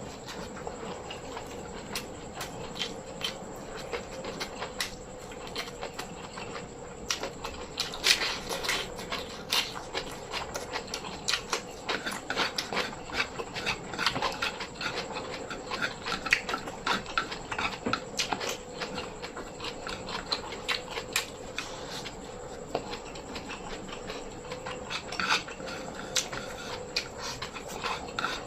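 Close-miked eating: chewing and wet mouth smacks in an irregular run of short clicks, with a faint steady hum underneath.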